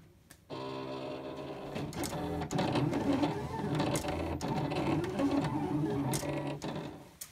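Silhouette Cameo vinyl cutter cutting heat transfer vinyl: its motors whir as the blade carriage and rollers move the mat. The whine starts about half a second in, shifts pitch again and again with small ticks as the cut changes direction, and fades near the end.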